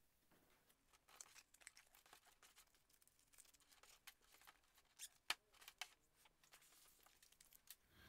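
Hands handling a folded-paper Foldscope microscope and its plastic pouch: faint rustling with scattered small clicks and ticks, the sharpest about five seconds in.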